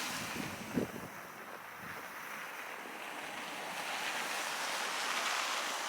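Storm wind rushing and buffeting the microphone, swelling slowly toward the end, with a brief thump under a second in.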